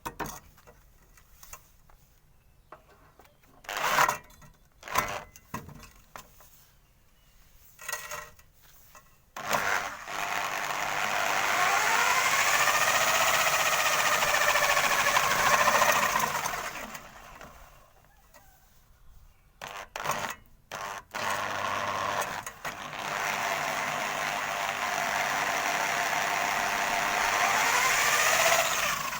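Scattered clicks and knocks, then a motor-driven rig spins up twice, each run a steady mechanical noise with a whine that rises and falls in pitch before it winds down.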